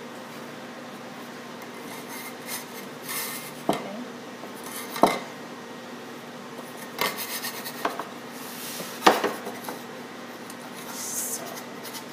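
A metal bench scraper and sugar cookie dough being handled on a floured wooden work table: scraping and rubbing broken by about five sharp knocks at uneven intervals, the loudest about nine seconds in.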